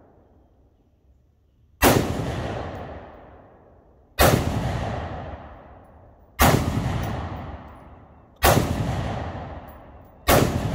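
Five single rifle shots from a semi-automatic 5.56 rifle, fired about two seconds apart. Each crack is followed by a long echo that fades away.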